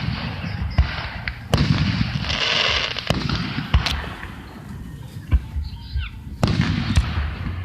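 Aerial fireworks shells bursting: a string of sharp bangs and booms, with crackling between them that is thickest about two to three seconds in.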